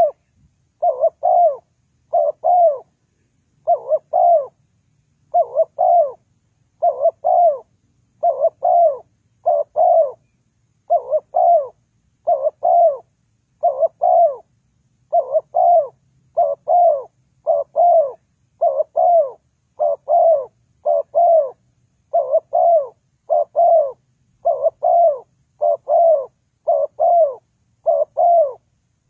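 Spotted dove cooing: a steady, unbroken run of paired coos, each note arching slightly down in pitch, about one pair every second and a half.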